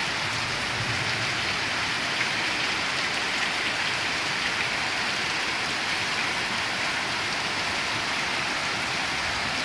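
Heavy downpour: rain falling hard and steadily, a dense, even hiss that does not let up.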